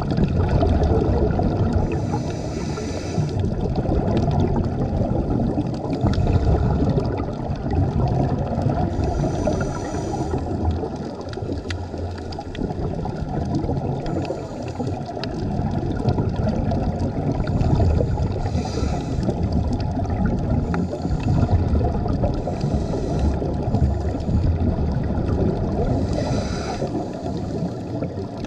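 Underwater bubbling and gurgling of a scuba diver's exhaled air, with a short hiss of the regulator every several seconds.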